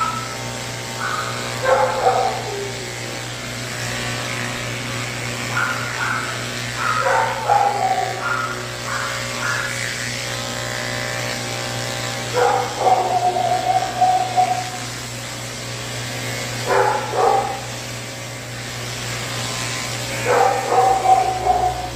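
Cordless pet clippers running with a steady hum as they shave matted cat fur. Over them a dog barks and whines in about five separate bursts, one a whine held for about two seconds; these are louder than the clippers.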